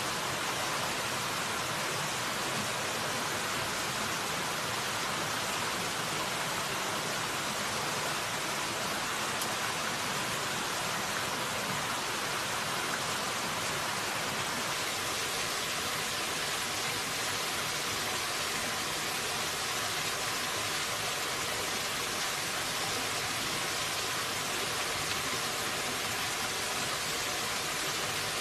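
Steady rush of a shallow stream running over rocks, an even, unbroken water noise.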